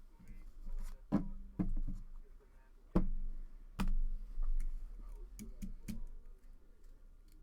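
Cards being handled on a desk: a series of irregular knocks and clicks, about nine in all, over a low hum.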